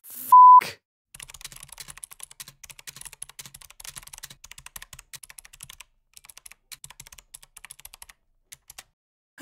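A short, loud one-tone censor bleep, then fast computer keyboard typing: a quick run of irregular key clicks lasting about eight seconds.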